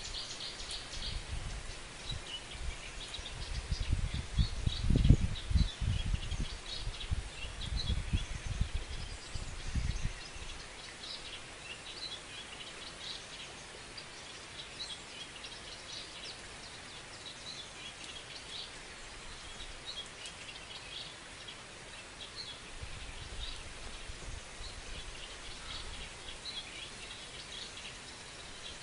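Small birds chirping and singing repeatedly. Low rumbling bumps come and go during the first ten seconds and are the loudest sound.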